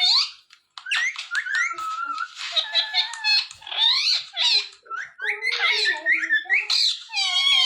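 Ring-necked parrot chattering: a fast run of squeaky, sliding calls and whistles with short breaks between them.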